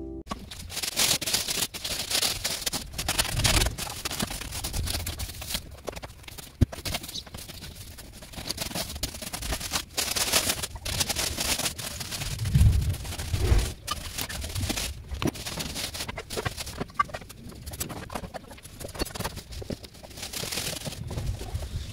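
Dry leaves being raked over bare dirt: a continuous run of scratchy, rustling scrapes. A few dull low bumps come about twelve to fourteen seconds in.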